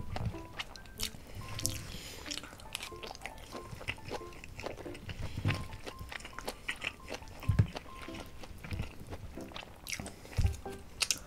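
A person chewing spicy braised pig's trotters close to the microphone, with many small clicks and smacks, over light background music.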